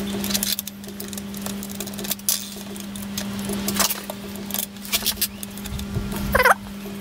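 Small steel parts of a switch bracket clicking and clinking as they are handled and fitted by hand onto a faceting machine's mast, over a steady low hum. A brief squeak near the end.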